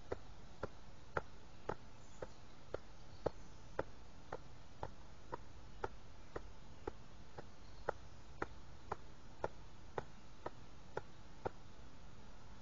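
Light, sharp clicks repeating evenly about twice a second, stopping about a second before the end.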